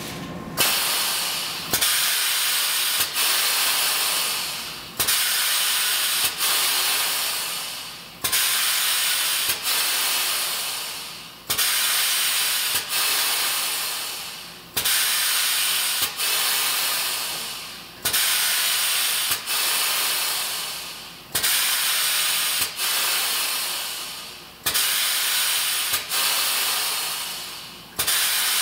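Expansion joint test stand's actuator hissing in repeated bursts as it cycles the joint up and down, about one burst every three seconds. Each burst starts sharply, has a click about a second in, and fades away before the next.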